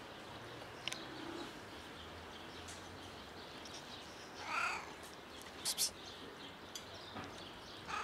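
Domestic cat giving one short meow that bends in pitch about halfway through, followed about a second later by two sharp clicks.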